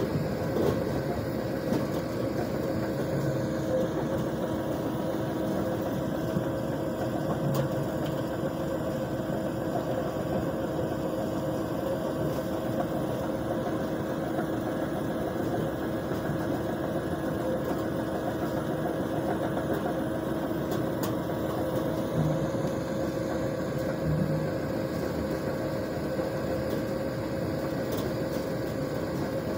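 ROPA Maus 4 sugar beet cleaner-loader running steadily while loading beet, its engine and conveyors giving a constant drone with a steady whine.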